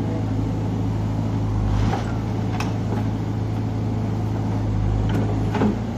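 JCB backhoe loader's diesel engine running steadily while it loads wheat, with the engine swelling under load twice and a few short knocks and clatters from the working bucket.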